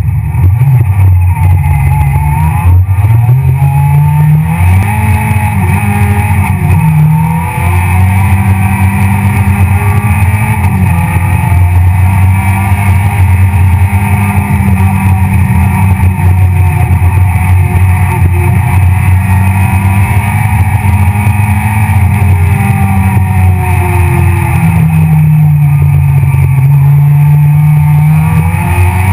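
Citroën C2 R2 Max rally car's 1.6-litre four-cylinder engine at racing pace, heard from inside the cabin: revs climb and drop repeatedly through gear changes and lifts for corners.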